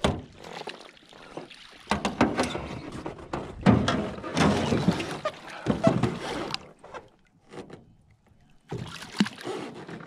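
Water splashing and sloshing as a small trout is netted and handled in a landing net at the side of an aluminium jon boat, with sharp knocks among the splashes. The splashing comes in two bouts, a longer one from about two seconds in and a shorter one near the end.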